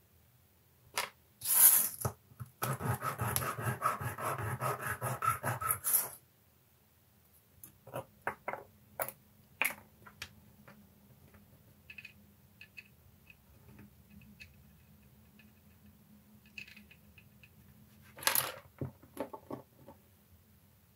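Small plastic model parts being handled on a workbench: scattered clicks and taps, with a loud rustle about a second and a half in and about three seconds of rapid rattling right after it, and another short burst of clicks near the end.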